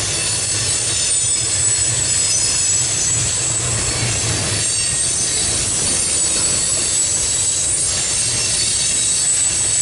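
CSX double-stack intermodal train's loaded well cars rolling past at steady speed: a continuous rumble of wheels on rail, with a thin high squeal from the wheels.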